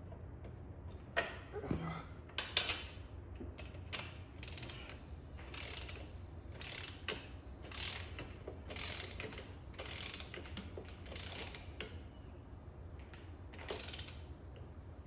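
Ratchet wrench being worked in short, repeated strokes, its pawl clicking, about one stroke a second, as bolts are run in or out during a motorcycle wheel change.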